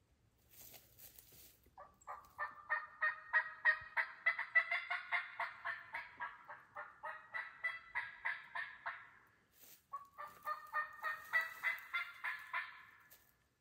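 Turkey calling: a long, fast run of call notes, about four a second, for some seven seconds. After a short break near the ten-second mark a second, shorter run follows.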